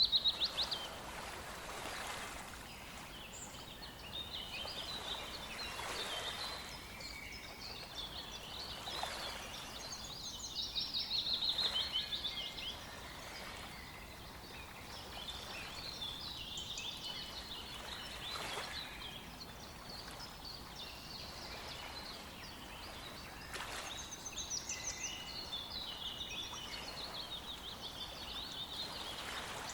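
Several songbirds singing and calling at once, with quick rattling trills now and then, over a faint steady wash of background noise.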